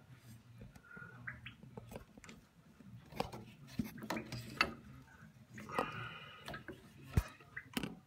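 Fingers scraping and clicking inside a Worcester Greenstar boiler's flow-adapter housing while picking out leftover debris: a run of faint, scattered clicks and scrapes.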